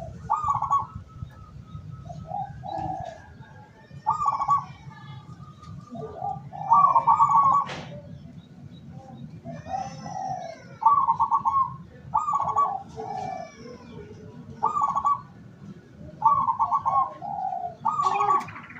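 Zebra doves cooing: rhythmic trilled phrases repeated every second or two, with faint high chirps of small birds behind them. A single sharp click about eight seconds in.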